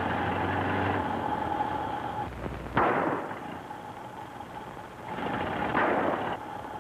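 Starship sound effects: a steady electronic hum, then two whooshes as the ship passes. The first whoosh is sharp and loud, sweeping down in pitch about three seconds in. The second swells and fades near the end.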